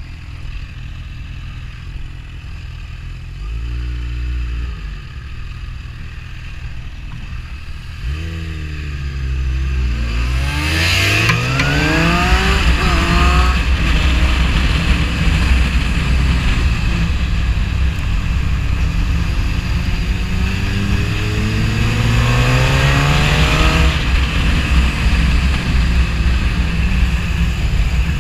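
Suzuki GSX-R 1000's inline-four engine heard from the rider's seat: running low at first, then about eight seconds in it revs hard, its pitch climbing and dropping back several times as it goes up through the gears, with wind rushing over the microphone as speed builds. Near the end it pulls up through the revs once more in one long rise.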